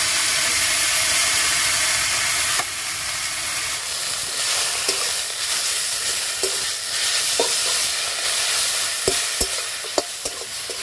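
Freshly washed amrul shak (Indian sorrel greens) sizzling loudly in hot mustard oil in a kadai just after being tipped in. The hiss eases after about two and a half seconds, then goes on more softly as the greens are stirred, with occasional sharp scrapes and clicks.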